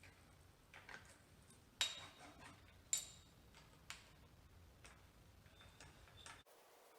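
Faint, sparse metallic clicks and ticks from hand tools and parts being handled while a bicycle is worked on. Two sharper clicks with a brief bright ring come about two and three seconds in.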